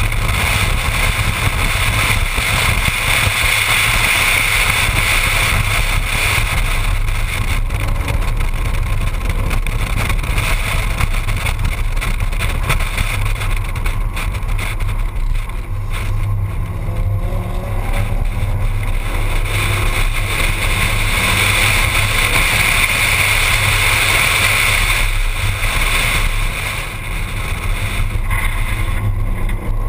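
Ford Mustang driving on a race track, heard from a camera mounted outside the car: engine and road noise under heavy wind rumble on the microphone, with the engine note climbing briefly about halfway through.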